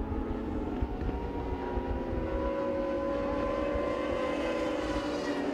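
Racing motorcycle engines running at high revs, a sustained engine note whose pitch creeps slowly upward through the middle.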